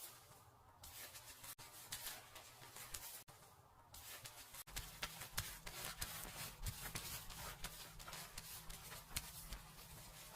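Fingers scrubbing and rubbing hair and scalp close to the microphone, as in a seated dry shampoo: a faint, irregular scratchy rustle. A low steady hum joins about halfway through.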